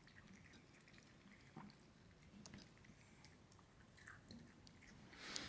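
A cat eating small pieces of watermelon from a plastic bowl: faint, scattered chewing clicks, with a brief louder rustle near the end.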